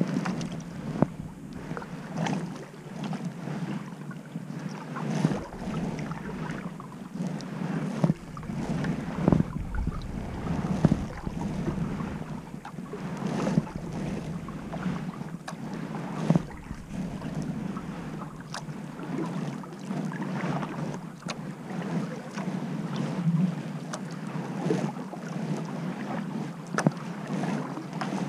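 Kayak paddling on calm water: the paddle blades dip and pull through the water in repeated strokes, with irregular short splashes and knocks and a steady rush of wind on the microphone.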